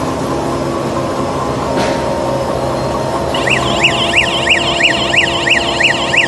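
Tissue-paper converting machinery running with a steady mechanical hum. About three seconds in, a high warbling tone starts, sweeping up and down about three times a second.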